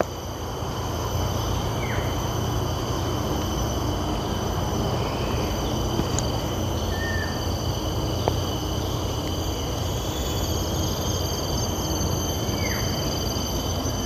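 Rainforest ambience: a steady high-pitched insect drone with a few short, downward-sweeping bird calls, over a low steady rumble.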